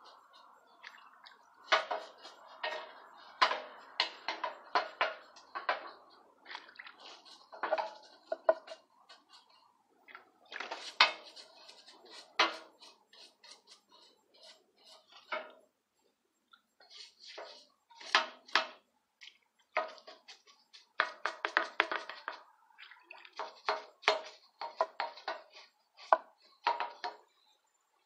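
Irregular metallic scraping and clinking as the old cast-iron sewing-machine treadle legs are cleaned by hand, in uneven bursts with short pauses.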